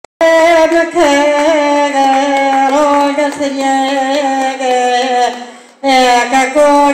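A woman singing solo into a handheld microphone, holding long drawn-out notes with small ornamental turns. She breaks for breath about five and a half seconds in, then sings on. No accompaniment is heard.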